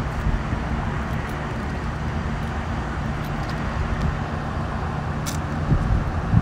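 Steady low rumble with a faint hum running under it, and one small sharp click about five seconds in.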